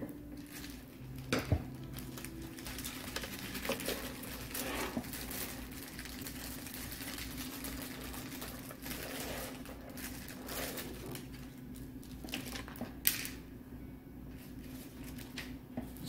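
Screwdriver turning screws back into the plastic back cover of an HP Pavilion all-in-one computer: scattered small clicks and scrapes of metal on plastic, with a sharper click about a second and a half in and another near thirteen seconds.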